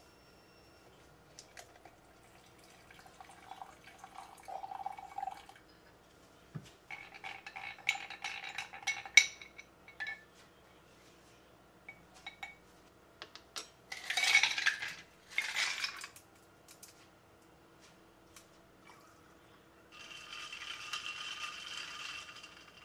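Cold coffee being made in a ribbed drinking glass: a long spoon clinks and scrapes against the glass in scattered taps, liquid is poured in in two short gushes, and near the end the drink is stirred with a steady swishing in the glass.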